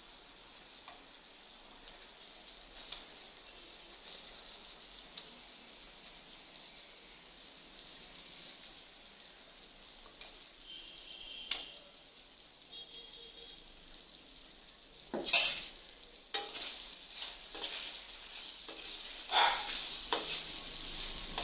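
Thickened barbecue sauce sizzling faintly in a pan while chicken wings are stirred into it, with a utensil knocking and scraping on the pan. There is a sharp clatter about two-thirds of the way through, then more knocks.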